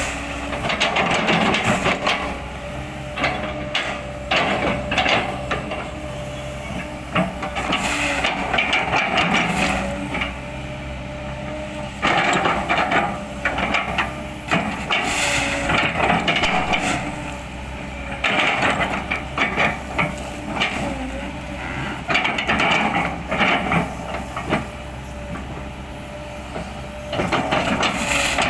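Kobelco excavator running with a steady engine hum and whine, broken by about seven spells of crackling and crunching as it chips oil palm trunks.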